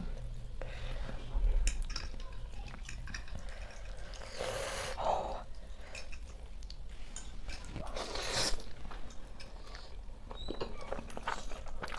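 Two people eating instant noodles with forks: close chewing and slurping, with light clicks of forks against plates, and two longer slurps about four and a half and eight seconds in.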